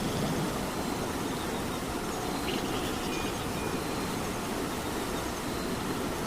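Steady rain, a continuous even hiss with most of its weight low in pitch.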